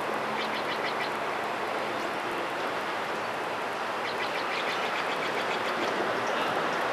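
Steady rumble of vehicle noise, with a bird giving two quick runs of rapid high chirps, about half a second in and again around four seconds in.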